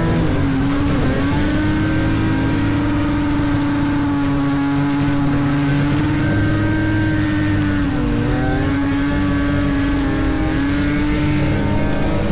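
Drift car's engine held at steady high revs, heard from inside the cabin during a slide on ice. The pitch dips briefly about a second in and again around eight seconds, then climbs back.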